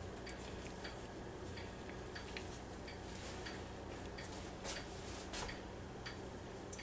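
Faint ticking, roughly two light clicks a second, over a low steady hum.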